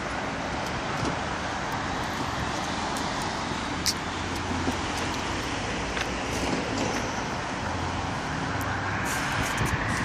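Steady city street traffic noise, with a few short clicks.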